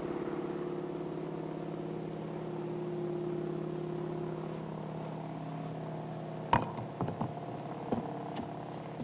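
A de Havilland Beaver floatplane's piston engine drones steadily as the plane takes off and flies. A few sharp knocks come in about six and a half seconds in, the first one louder than the engine.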